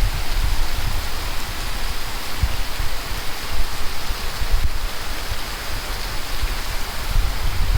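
Steady monsoon rain falling, an even hiss of rain.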